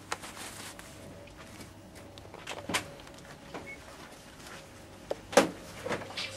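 Rustling handling noise with a few short knocks, the loudest about five and a half seconds in, over a faint steady hum.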